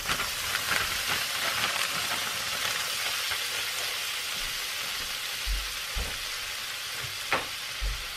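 Broccoli florets sizzling with garlic in a hot stainless steel frying pan, a steady frying hiss, with a utensil scraping the pan near the start. A few low knocks and one sharp click come in the second half.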